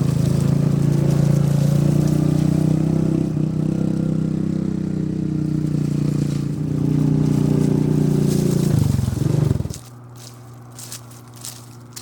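Engine of a Yamaha Rhino side-by-side utility vehicle running steadily under way. About nine seconds in it slows, its pitch falls, and it drops to a much quieter idle hum, with a few light clicks.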